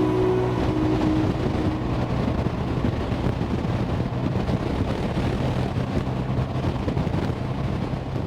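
Motor trike engine running steadily, with wind buffeting the microphone; the last of a music track fades out in the first second or so.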